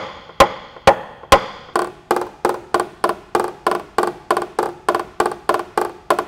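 Small PDR tap-down hammer striking a knockdown punch on the car's steel hatch: sharp taps with a short ring. Three come about half a second apart, then from about two seconds in a quicker, even run of about four a second. Tapping like this knocks down the high spots left around a pushed-out dent.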